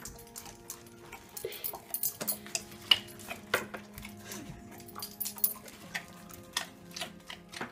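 Scattered light clicks and taps of dogs' claws and a small treat on a hard tile floor, over a faint steady low hum.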